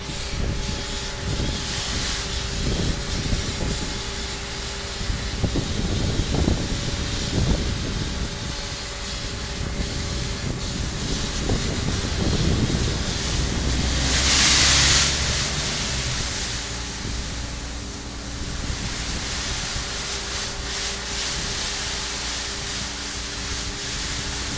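Sandblasting: a pressurised jet of air and sand hissing over a steady machine hum, with a louder burst of hiss lasting about a second and a half, some fourteen seconds in.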